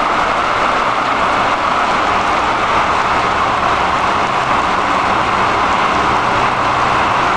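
Steady heavy rain falling during a thunderstorm, an even hiss.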